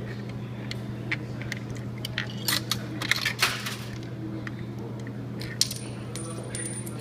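Coins fed into a vending machine's coin slot, clinking and rattling as they drop inside, busiest about two and a half to three and a half seconds in, over a steady low hum.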